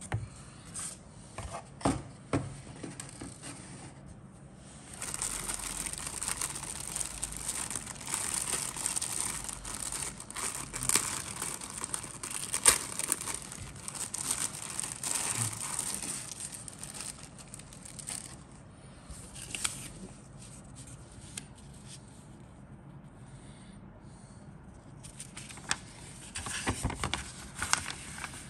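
Paper and packaging rustling and crinkling as a model kit's folded instruction sheet is handled, with a few light taps in the first seconds. A long stretch of rustling runs through the first half, and another burst comes near the end as the sheet is opened out.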